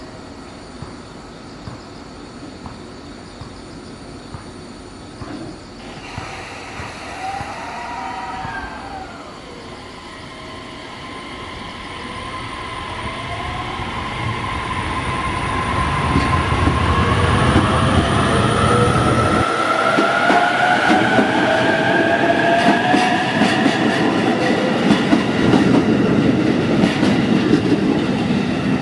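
JR E233 series electric train pulling away from the station. Its traction motors' whine rises steadily in pitch as it accelerates, and it grows louder about halfway through as the cars pass close. The wheels clack over rail joints.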